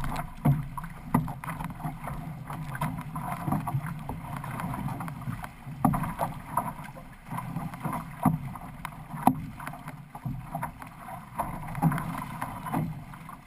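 Water rushing and splashing against an outrigger canoe's hull and outrigger float as the crew paddles, with irregular sharp splashes from paddle strokes and spray.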